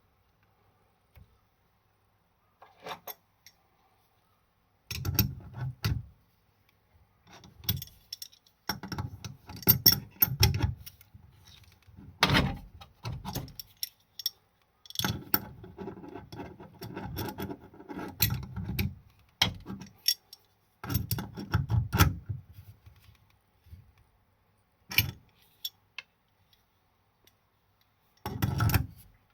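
Metal faucet parts and hand tools being handled, clinking and clattering in irregular bursts with short quiet gaps.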